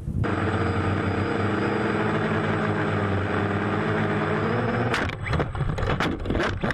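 A multirotor drone's motors run at a steady buzzing pitch, heard from its onboard camera. About five seconds in the drone crashes, with a series of knocks and thumps while the motor pitch wavers up and down.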